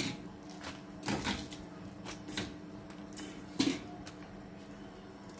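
Pak choy being added to a pot of simmering chicken soup: four light knocks and clatters about a second apart, the loudest about two-thirds of the way through, over a steady low hum.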